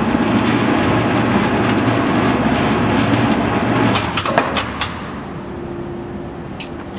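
The motor and gear drive of a wrought-iron bar twisting machine running under load as it twists a steel bar: a loud steady mechanical drone with a pulsing low note. About four seconds in it gives way to a few sharp clicks, and then a quieter steady hum remains.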